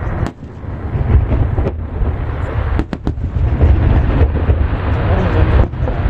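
Aerial firework shells bursting over the sea in quick succession, the booms running together into a continuous heavy rumble, with a brief lull just after the start.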